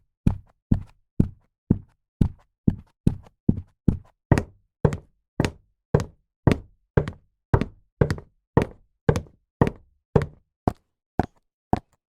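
Footsteps in high-heeled shoes, walking at an even pace of about two steps a second, each step a sharp heel click with a solid knock beneath it.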